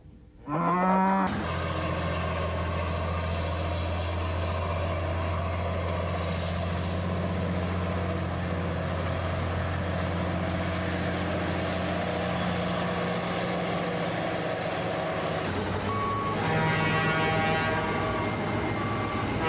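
A cow moos once at the start, then a vehicle engine runs steadily, its note shifting about three-quarters of the way through.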